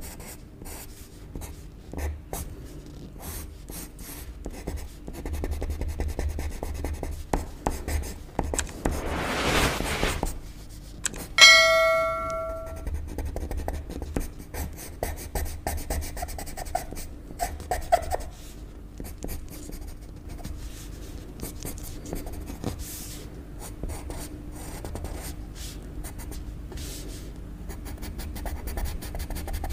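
Pencil scratching on paper in short sketching strokes, with one longer rubbing stroke. About a third of the way through, a single short bell-like ring, the loudest sound, fades over about a second.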